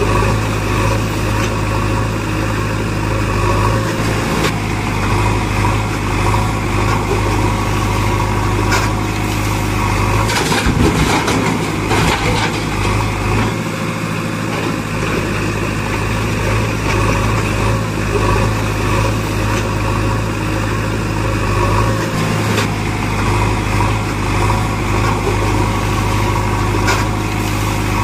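Steady heavy diesel engine running sound, an engine sound track accompanying toy loader play rather than a real machine, with a few short knocks about ten to twelve seconds in.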